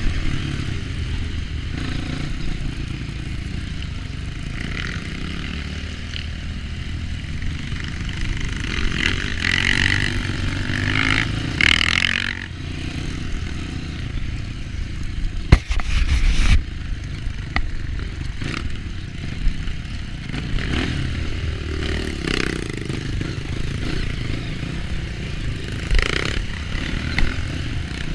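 Dirt bike engine running and pulling through changing throttle on rough ground, with scattered rattles and clicks. A loud knock comes about halfway through.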